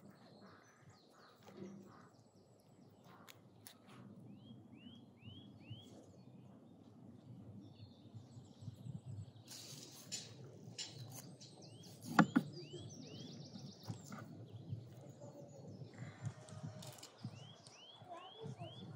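Knife cutting raw lamb on a wooden cutting board, with low scraping and handling sounds and one sharp knock about two-thirds of the way through, the loudest sound. A bird sings three short runs of four or five quick falling notes.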